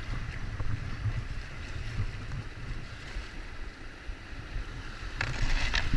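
Flooded river water rushing and splashing around an inflatable kayak, over a steady low rumble on the boat-mounted microphone. The splashing grows louder about five seconds in.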